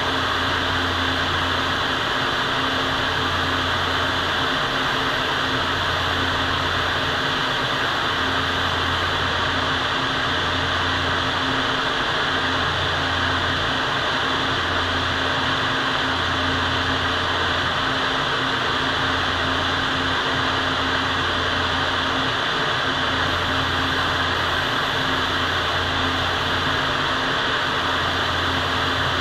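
Steady rushing air of a paint spray booth's ventilation fans, with a low hum underneath that breaks off briefly every couple of seconds.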